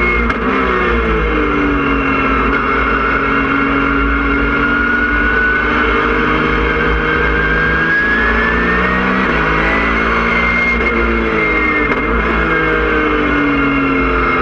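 Porsche 997.1 GT3 Cup car's flat-six engine heard from inside the cockpit at racing speed, its pitch climbing under acceleration and dropping at gear changes and braking several times. A thin high whine rises and falls with it.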